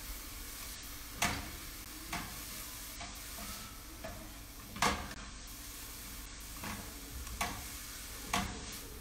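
Mushrooms, onions, garlic and herbs sizzling in a frying pan, with a utensil scraping and knocking against the pan as they are stirred: a steady sizzle broken by several sharp strokes, the loudest about five seconds in.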